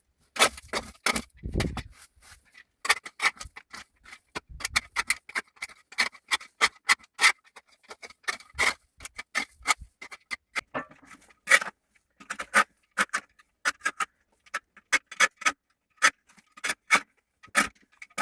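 A puppy feeding from a bowl: a quick, uneven run of sharp clicks, two to four a second.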